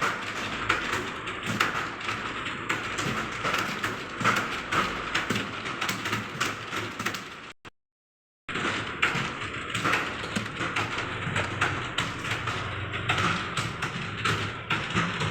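Fast, continuous typing on a computer keyboard: a rapid stream of key clicks. All sound drops out for under a second about halfway through, then the typing resumes.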